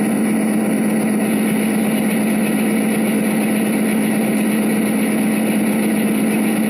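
Freight train going by: a steady engine drone with a constant hum and rolling noise as the cars pass.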